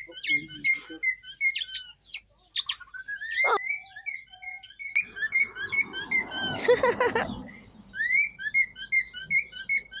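Parakeets chattering: quick, repeated short rising chirps, several a second, with a louder, rougher burst about seven seconds in.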